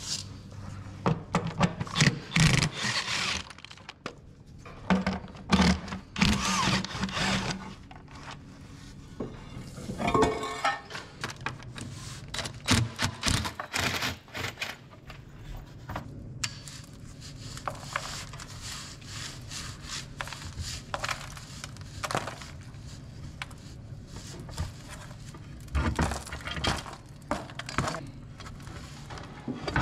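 Hand tools and steel parts clanking, clinking and scraping in an irregular run of knocks as the bottom access plates of a skid steer loader are unbolted and taken off.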